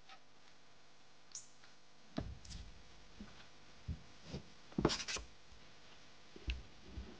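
Scattered knocks and clicks as an angler moves about and kneels on a boat's front deck, handling his fishing rod; the loudest cluster of knocks comes about five seconds in.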